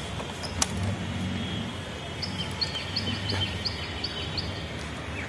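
A small bird chirping a quick run of about eight short, high notes in the middle, over steady outdoor background noise. A single sharp click about half a second in.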